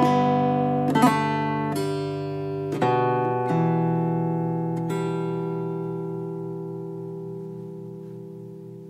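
Acoustic guitar music: a few plucked notes and chords in the first five seconds, then a final chord left ringing and slowly fading away.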